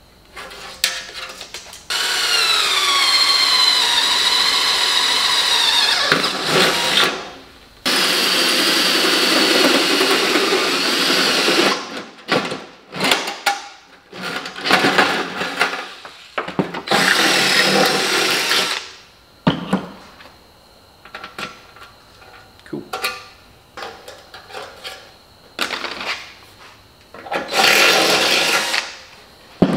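Cordless drill boring holes through the steel wall of a metal ammo can in several bursts of a few seconds each, the motor's pitch sagging as the bit bites in the first burst. Clicks and knocks of handling come between the bursts.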